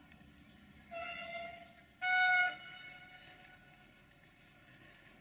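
Train horn sounding two short blasts: a lower note, then a slightly higher and louder one.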